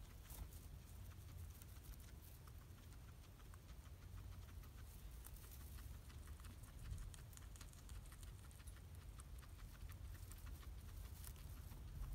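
Guinea pig munching hay: a fast run of faint, crisp crunching clicks with rustling of the stalks, over a low steady rumble.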